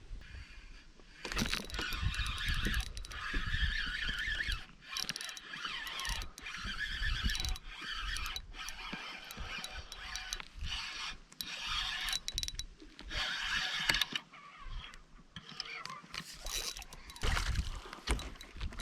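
Fishing reel being wound in, a rough mechanical whirring broken by irregular clicks and knocks.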